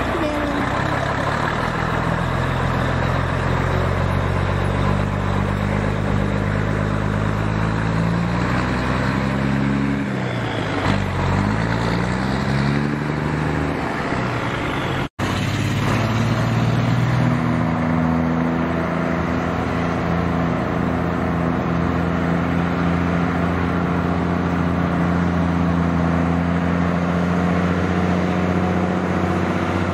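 Mack B-61 truck's diesel engine pulling away and accelerating, its note dipping and climbing again as it changes gear a third of the way in. After a brief dropout halfway, a steady engine note as the truck leads a line of trucks past.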